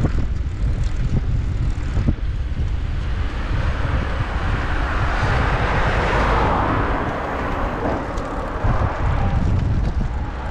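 Steady low wind rumble on the microphone of a moving recumbent trike, with a light truck passing on the road alongside; its noise swells and is loudest about six seconds in.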